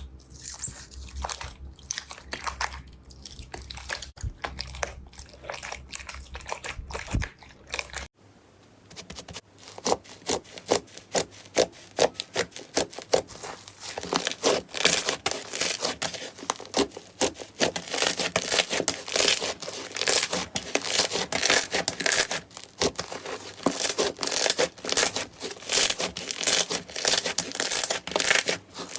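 Slime being squeezed and worked by hand, making dense, irregular crackles and rubbing noises. After a short break about eight seconds in, a faster run of crisp crackling and snapping follows, typical of crunchy slime.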